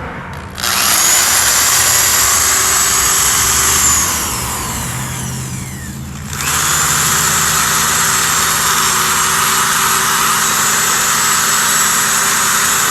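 Power drill running at speed, boring through a plastic prong that joins the front and back halves of a radio bezel. It runs about three seconds, spins down with a falling whine, then starts again and runs about six seconds more.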